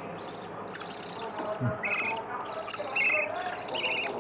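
Small birds chirping in quick, buzzy bursts that repeat every half second or so, high-pitched and fast-pulsed.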